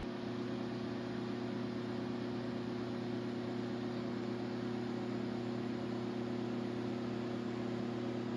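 Steady hum of a mains-powered electric motor with an even rushing noise over it, unchanging throughout.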